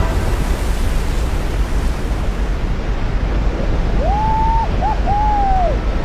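Steady rush of a glacier meltwater waterfall pouring into the sea. About four seconds in, a few long rising-and-falling whoops ring out over it.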